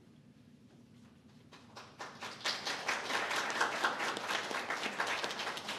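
Audience applauding, starting about two seconds in after a short lull.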